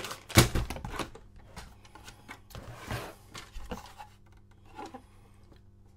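Hands handling a plastic pouch and the plastic parts of a film developing tank: a sharp knock about half a second in and a few quick clicks, then a soft rustle in the middle and a couple of light taps.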